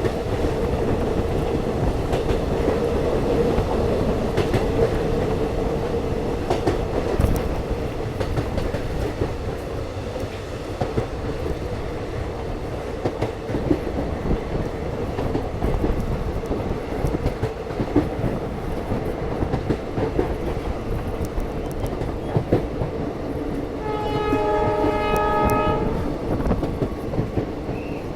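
Passenger train running, its wheels clattering and knocking over the rails with a steady rumble. About 24 seconds in, a locomotive horn sounds once for about a second and a half.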